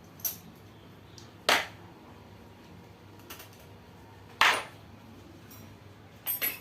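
Metal tools and engine parts clinking and clanking during the teardown of a Honda GL Pro motorcycle engine: a few separate sharp clanks, the loudest about a second and a half and four and a half seconds in, then several quick ones near the end.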